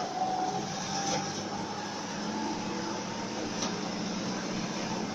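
City bus driving, heard from inside the cabin: a steady engine hum and road noise, with a faint whine above it.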